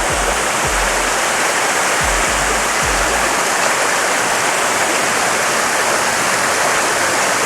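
Small waterfall on a clear spring-fed desert stream, water rushing and splashing steadily. A few brief low thumps in the first three seconds.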